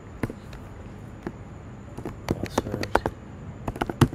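Typing on a computer keyboard: a few scattered key clicks at first, then quicker runs of keystrokes in the second half.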